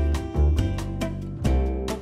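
Background music with a steady beat: strummed guitar over a bass line and regular percussive hits.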